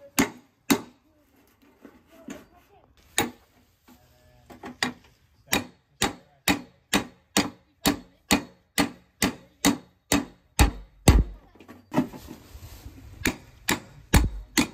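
Hammer striking the back of a hatchet, driving its blade through corrugated galvanized tin roofing to cut a hole. Sharp blows come scattered at first, then in a steady run of about two a second, with a short break and a few duller thuds before more strikes near the end.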